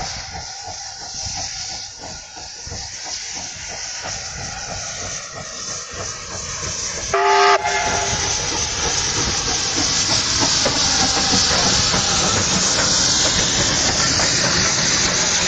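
Soviet P36-class steam locomotive approaching under power with a rhythmic chuffing exhaust, sounding one short whistle blast about seven seconds in. As it passes close by, a loud, steady rush of steam and running gear follows.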